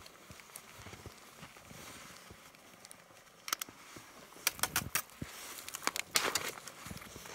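Camp cooking gear being handled in the snow: faint rustling, then from about three and a half seconds in scattered sharp clicks and clinks, with a short scraping, crunching sound around six seconds in.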